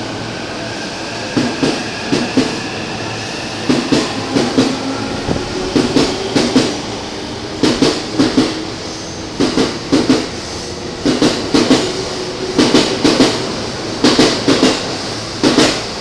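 A 15-car JR E231/E233 series electric commuter train pulling out of the station on the next track. Its motor whine rises over the first few seconds, and the wheels clatter in groups of knocks over the rail joints as the cars roll past.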